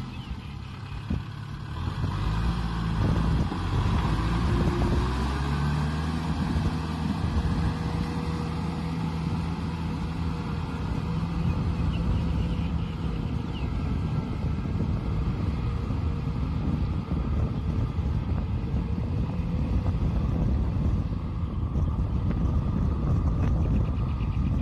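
Tractor diesel engine running steadily under load while it drags a disc harrow through deep paddy mud.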